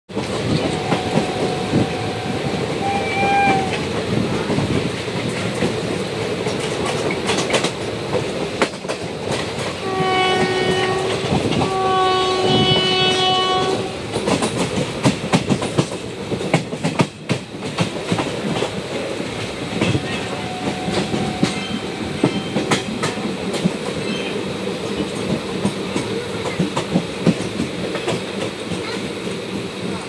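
Passenger train running, heard from an open door or window of the coach: steady rumble and clickety-clack of the wheels over the rail joints. A train horn sounds twice, about ten and twelve seconds in, the second blast longer.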